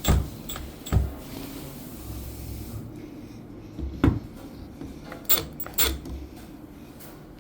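Five sharp clicks and knocks, spaced irregularly, of hard parts of a smart door lock being handled and set down.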